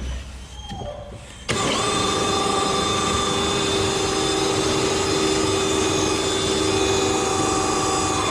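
Engine of a high-pressure drain jetter cutting in suddenly about a second and a half in, then running steadily at an even pitch.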